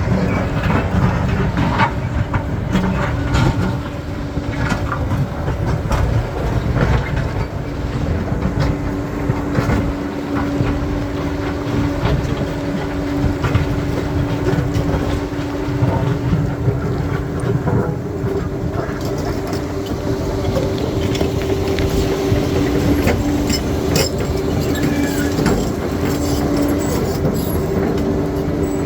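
Crawler bulldozer working rocky ground: its diesel engine runs steadily under load with a steady drone, while the steel tracks clank and rocks knock and scrape under the blade.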